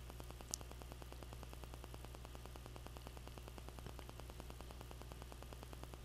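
Low steady electrical hum with a fast, even buzz and hiss from the recording setup, with one short faint click about half a second in.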